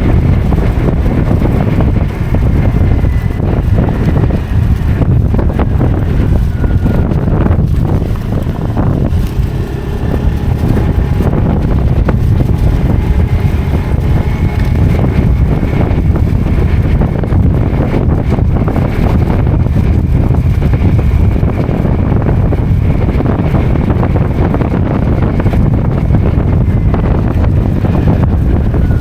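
Wind buffeting the microphone of a moving motorcycle, with the engine running steadily underneath.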